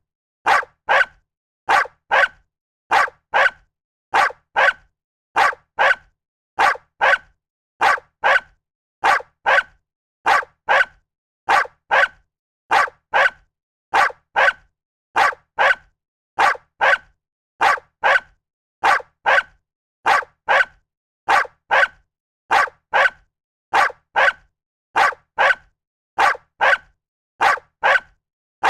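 A dog barking in quick pairs of barks, repeated at an even, unchanging pace with silence between them.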